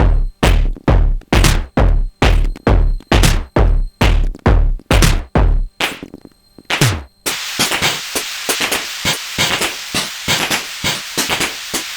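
Sonic Potions LXR-02 digital drum machine playing a techno groove: a steady four-on-the-floor kick at about two beats a second. The kick drops out just under six seconds in, one more kick with a falling pitch comes about a second later, and then a busy, hissy hi-hat and percussion pattern runs on without the kick.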